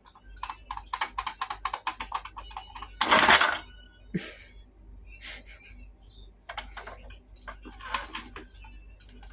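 Mad Dog bulldog toy's mechanism ticking rapidly, about eight clicks a second, for a couple of seconds. Then, about three seconds in, the dog's spring-loaded head snaps forward with a loud plastic clack. A few scattered plastic clicks and knocks follow as the toy is handled and the head is pushed back.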